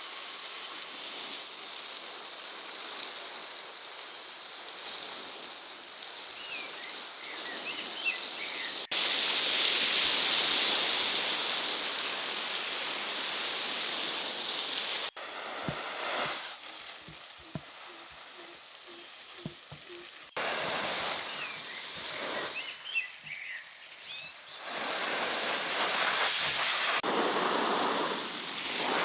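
Steady outdoor rushing noise, changing abruptly between several joined clips, with a few short bird chirps; a quieter stretch in the middle holds a handful of knocks.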